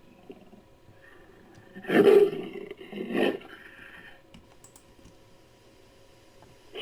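Two short creature roars about a second apart, the first the louder: a homemade monster sound effect layered from a human voice and gorilla and leopard recordings.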